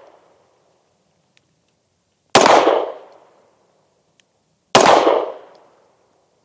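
Two 9mm shots from a Sig Sauer P320 X-Five pistol firing Sierra 115-grain jacketed hollow points, about two and a half seconds apart. Each is a sharp report followed by a fading echo.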